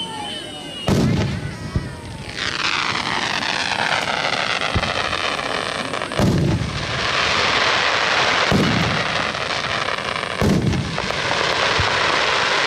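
Aerial firework shells bursting. There is a heavy boom about a second in, then three more about two seconds apart from roughly six seconds in, with a steady hiss filling the gaps between them.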